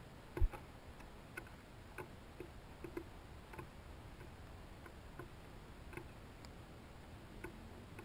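Songbirds, a dark-eyed junco and a northern cardinal, pecking seed on a wooden platform feeder: irregular light taps, one or two a second, with one heavier thump about half a second in.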